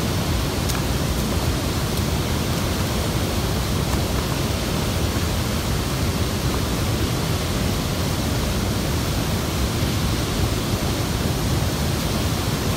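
Steady rushing of river water pouring over a low dam spillway and through the rapids below it, an even wash of noise with no breaks.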